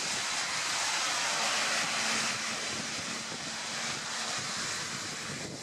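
An Enviro 400 double-decker bus and cars passing close on a rain-soaked road: a loud hiss of tyres on wet tarmac that swells in the first couple of seconds and eases as the bus drives away, with a low steady hum under it in the middle.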